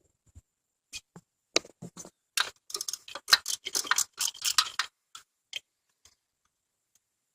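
A run of irregular sharp clicks and rattles, sparse at first, thickest from about two to five seconds in, then a few stray ones: hand tools and parts being handled at an exposed car starter motor.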